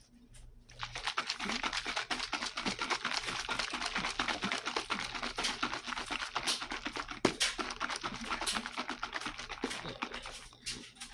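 A lidded jar of heavy whipping cream and sugar being shaken hard by hand, with rapid sloshing and rattling strokes. The shaking starts about a second in and stops shortly before the end. This is the cream being shaken to make no-churn ice cream.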